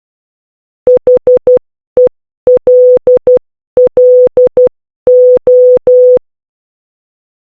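Morse code sent as a steady single-pitch electronic beep, short dots and longer dashes with silent gaps between letters, spelling out H-E-L-L-O.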